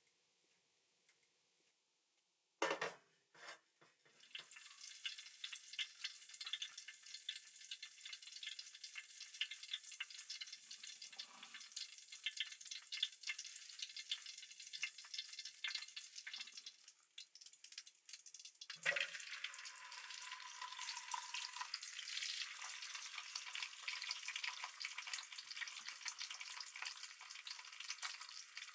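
Food sizzling in a hot pan with fine, dense crackling, starting a few seconds in right after a sharp knock; a second knock comes about two-thirds of the way through.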